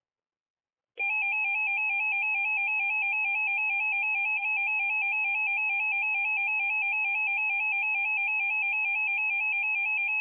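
Emergency Alert System attention signal: a loud, steady two-tone alert tone that starts about a second in and holds unbroken, announcing an incoming warning.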